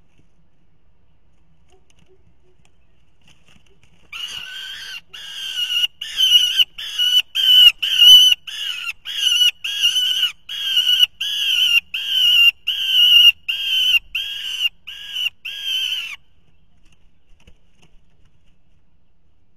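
Juvenile peregrine falcon giving a long run of harsh, repeated wailing calls, about two a second for some twelve seconds, starting about four seconds in; each call is a short note that dips slightly in pitch at its end.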